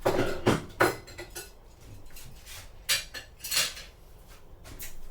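Cutlery clinking against dishes: about six sharp clinks, three close together in the first second and the rest spread out after.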